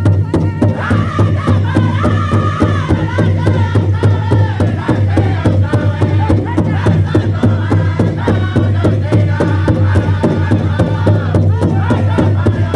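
Powwow drum group singing a fast song in high voices, struck in unison on a large shared bass drum at a fast, steady beat.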